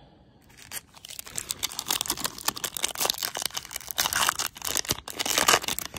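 Foil wrapper of a Topps baseball card pack crinkling and tearing as it is opened, a dense crackle that starts about half a second in.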